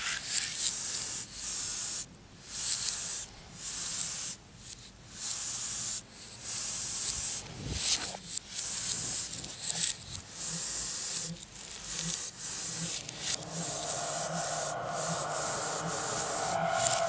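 Aerosol spray paint can sprayed in short bursts, a high hiss that starts and stops roughly once a second.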